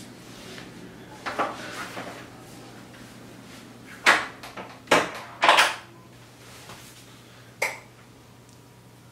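A few sharp knocks and clunks from a door and cupboards being handled, loudest about four to six seconds in. A steady low hum runs underneath.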